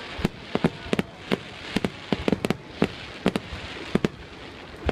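Aerial fireworks bursting in quick, uneven succession: a dozen or more sharp bangs over a steady background noise.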